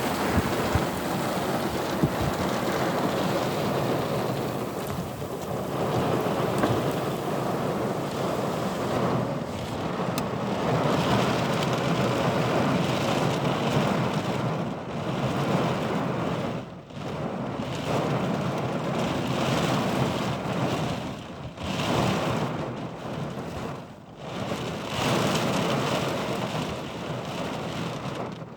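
Storm noise: heavy rain and gusting wind, a loud continuous rushing that drops away briefly a few times in the second half.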